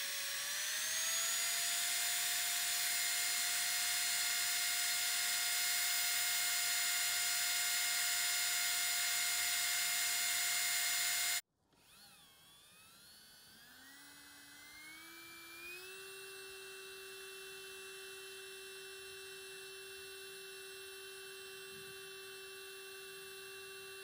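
Two electric nail-drill handpieces running. First a Strong 210 handpiece spins up and runs with a steady whine. After a cut, the quieter Saeshin Strong Medi Power Pro handpiece runs, its whine rising in steps as its speed is turned up to 30,000 rpm, then holding steady.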